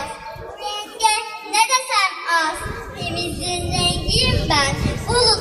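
Children singing in high voices. A low rumble comes in under the singing about halfway through.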